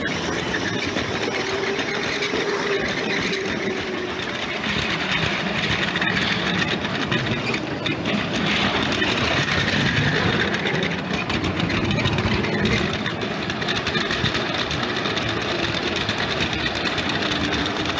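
LEGO train running on its plastic track: a steady motor whirr and wheel rumble that grows a little louder about halfway through, then eases.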